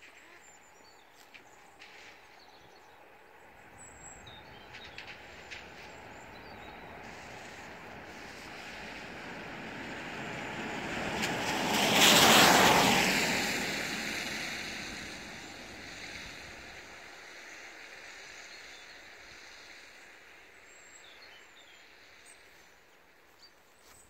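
A vehicle passing by, its tyre and road noise building slowly, loudest about halfway through, then fading away.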